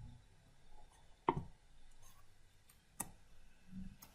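Two faint clicks about a second and a half apart, from a computer's mouse and keyboard being worked, with a few softer ticks between them.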